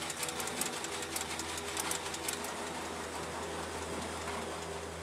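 Metal clicking and rattling of linked 20 mm cartridges being hand-fed into a six-barrel rotary cannon's ammunition feed mechanism, quick irregular clicks for the first two seconds or so. A steady low hum runs underneath.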